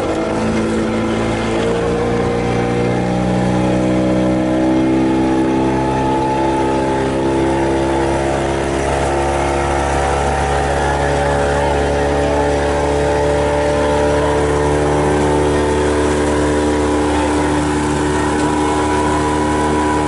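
Motorboat engine running, its pitch rising over the first few seconds as it speeds up, then holding a steady drone.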